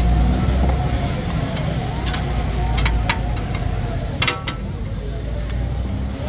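Steel spatulas clanking and scraping on a large iron tawa of frying mutton liver, with several sharp metallic strikes about two to four and a half seconds in. Underneath runs a steady low rumble with crowd chatter.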